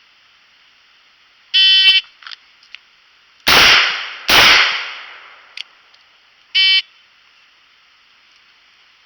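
A shot timer's start beep, then two shots from a Taurus 856 .38 Special snub-nose revolver just under a second apart, then a second timer beep five seconds after the first that marks the end of the par time.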